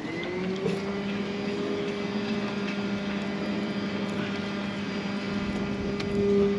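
An engine or motor spins up at the start and then runs at a steady, even pitch.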